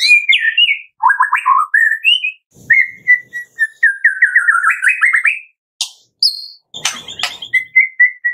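White-rumped shama (murai batu) singing a fast run of varied whistled phrases and rapid repeated notes, the 'tembakan' song keepers play to provoke other shamas into singing. A couple of short harsh notes come about six and seven seconds in, then a string of quick whistled notes.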